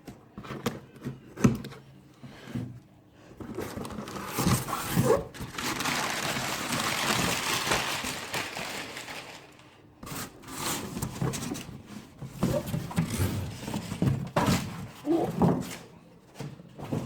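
A large cardboard box being handled and opened, with knocks and thuds of cardboard and a long rasping, scraping stretch of about six seconds in the middle.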